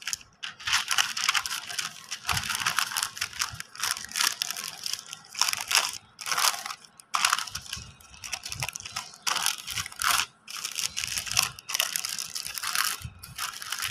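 Thin white wrapping paper crinkling and rustling in irregular bursts as it is folded and rolled around a shawarma.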